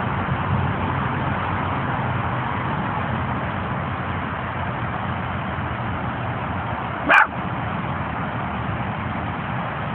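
A small Jack Russell terrier–Chihuahua mix dog barks once, sharply, about seven seconds in, over a steady background rumble.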